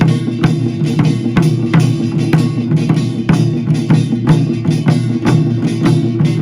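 Korean pungmul percussion band playing: drums struck in a steady, even beat over a continuous ringing of gongs and drums.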